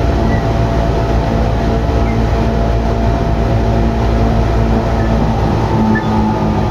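Tokyu 8500-series electric train running, with a steady hum from its Hitachi and Toyo traction motors over rumbling wheel and rail noise.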